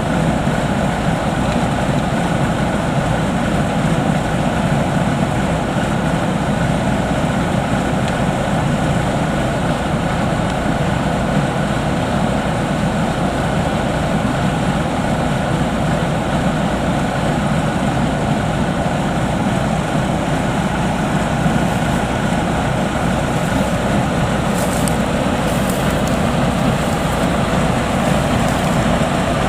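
Rice combine harvester's diesel engine running steadily under load in a muddy paddy, an even heavy engine noise with no pauses.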